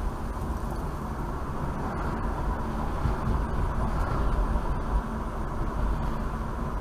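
Steady road and engine noise of a moving car heard from inside the cabin: a low rumble with tyre noise.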